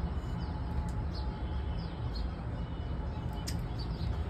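Small birds chirping in short falling notes, several a second, over a steady low rumble.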